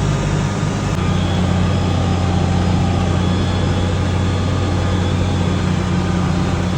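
Case IH 1086 tractor's six-cylinder diesel engine running steadily under load while it works a round hay baler. Its note shifts slightly about a second in.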